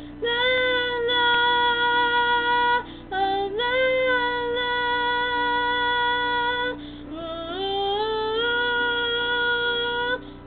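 A young girl singing long, wordless held notes, with short breaths between phrases. In the second half the melody climbs in small steps.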